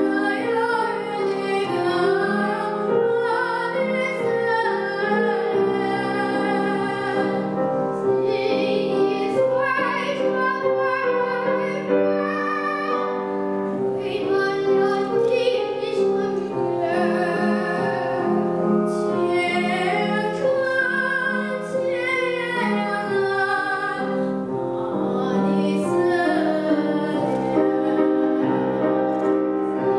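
Two girls, aged 9 and 11, singing a duet in a classical style, taking turns on the melody, accompanied by a Steinway grand piano.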